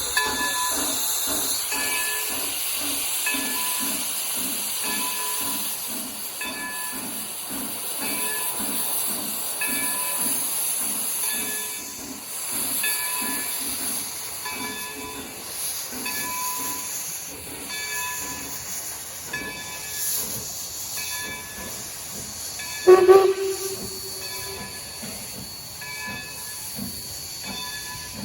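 Steam locomotive running, with a steady beat of exhaust chuffs about two to three a second and a hiss of steam. About 23 seconds in it gives one short whistle blast, the loudest sound.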